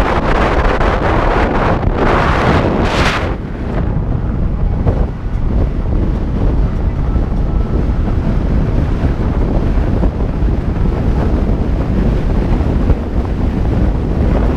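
Wind buffeting the microphone of a camera mounted on the outside of a moving car: a loud, steady rush with heavy low rumble. A brighter, hissier gust comes about two to three seconds in.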